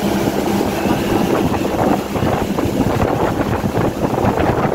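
Motorboat engine running with a steady hum, under heavy wind buffeting the microphone as the boat moves.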